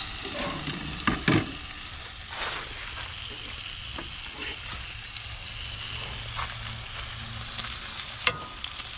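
Bacon sizzling and frying in a pan on a propane camp stove, a steady crackling hiss, with a few sharp knocks of cookware early on and again near the end.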